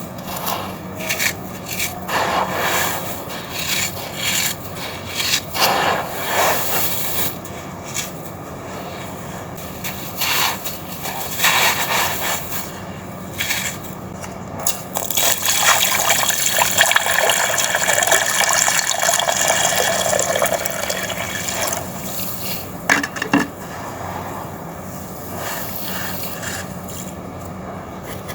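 Red sand-cement chunks being crushed and crumbled, with gritty crunches and rubbing throughout. Around the middle comes a longer, steadier stretch of wetter, watery crumbling.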